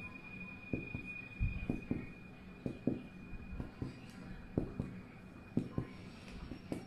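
Abdominal percussion practised on a stuffed plush teddy bear's belly, a finger striking a finger laid flat on the stuffing. Soft taps in pairs, about one pair a second, moving from spot to spot.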